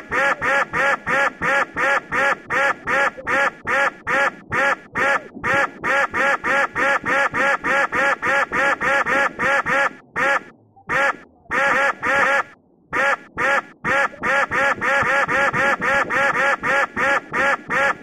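Rapid string of dubbed-in duck quack sound effects, about four a second, standing in for the officers' gunfire, with two short breaks past the middle.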